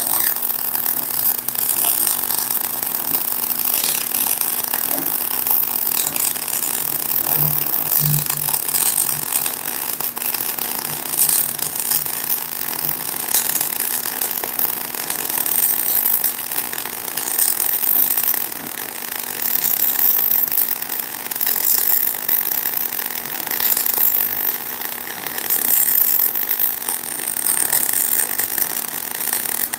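MIG welding arc with CO2 shielding gas running continuously as a bead is laid on a steel reinforcement plate on a truck's rear axle housing: a steady high hiss that swells and dips without break.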